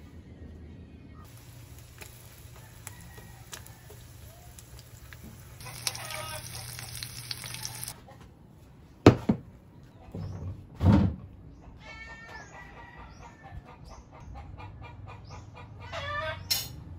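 Chickens: a rooster crows, then hens cluck in a run of short calls. Two loud thumps come a couple of seconds apart near the middle.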